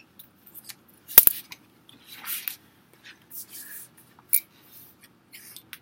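Short sharp wooden clicks and soft rustles from a woven popsicle stick bomb being handled and dropped onto carpet. It lands intact without bursting apart. The loudest sound is a sharp double click about a second in.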